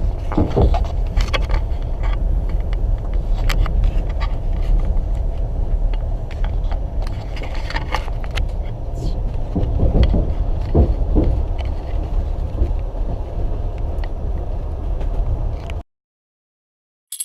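Passenger train running, heard from inside a compartment car: a steady low rumble with scattered clicks and rattles. It cuts off suddenly a second or so before the end.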